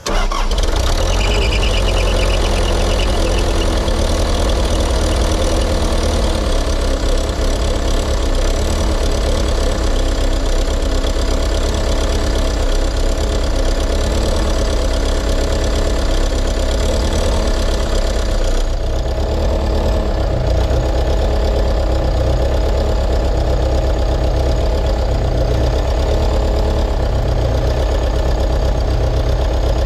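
Diesel engine running steadily with a knocking clatter, right after a fuel-filter change and hand priming of the new filter; its tone shifts slightly about two-thirds of the way through. The owner suspects the fuel system is still sucking air.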